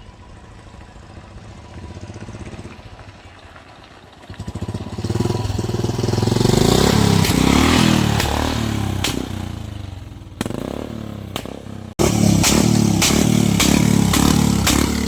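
Engine running through a swapped exhaust silencer: it runs softly, is revved hard about five seconds in, and then fires a rapid run of loud exhaust bangs ('pataka'), about three a second near the end.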